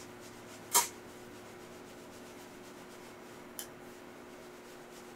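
Fluffy powder brush sweeping bronzer across the cheek: one short rubbing swish about a second in and a faint tick later, over a low steady hum.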